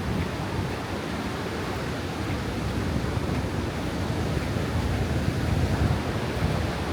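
Ocean waves breaking on the beach with wind, and wind buffeting the microphone as a rumble that rises and falls.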